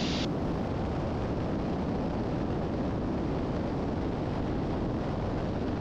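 Steady cabin drone of a 1981 Piper Seneca III's twin turbocharged Continental six-cylinder engines and propellers in cruise flight, heard from inside the cockpit.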